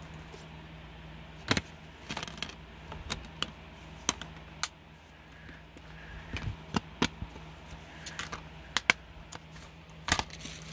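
Plastic clicks and rattles of a Blu-ray case and disc being handled, a string of sharp separate clicks scattered throughout, the loudest about a second and a half in and again near the end.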